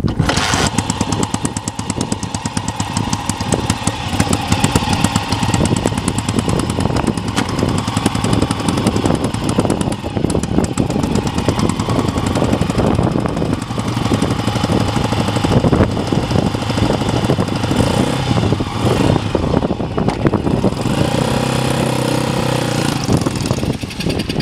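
1965 Kawasaki Meguro SG250T motorcycle's 250 cc single-cylinder four-stroke engine catching just after the start and then running at idle with a rapid, uneven beat. Near the end its note steadies as the bike pulls away.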